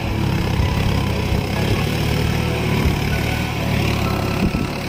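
John Deere 5050D tractor's three-cylinder diesel engine running steadily while it pulls a rotavator through the flooded paddy field.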